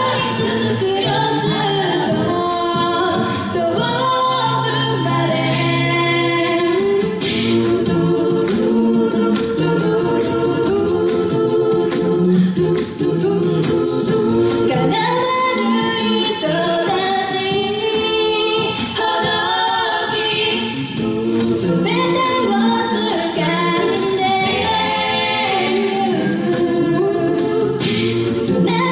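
Six-voice a cappella group singing a J-pop song live: a female lead voice over sung backing harmonies and a low bass line, with vocal percussion keeping a steady beat.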